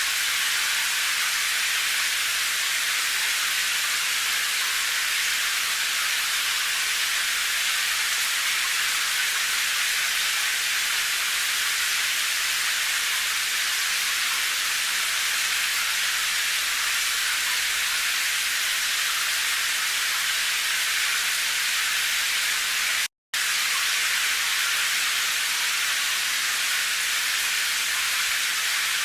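Rain as a steady, even hiss, high-pitched with hardly any low rumble and no single drops standing out. It cuts out to silence for a split second a little past three-quarters of the way through.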